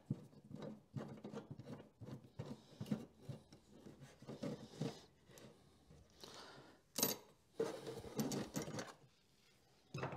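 Allen key turning a small screw and metal parts being handled in a jetboard's engine bay, loosening the throttle cable fitting: scattered faint clicks and scrapes, with a sharper click about seven seconds in.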